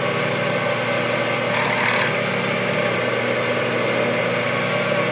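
Variable-speed mini lathe running steadily at about 750 rpm, its motor and gear train humming, while a drill bit in the tailstock chuck bores into the spinning workpiece. A brief scraping hiss with a thin high squeal comes about two seconds in.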